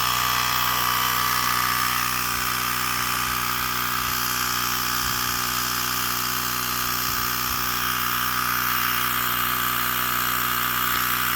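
A small motor runs with a steady buzzing hum and an even hiss above it, unchanging throughout.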